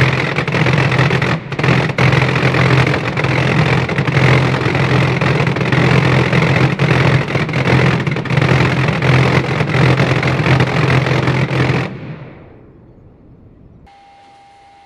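A loud fireworks barrage: many rapid launches and bursts run together into one dense, continuous rumble that starts suddenly, then stops about twelve seconds in and dies away over about a second.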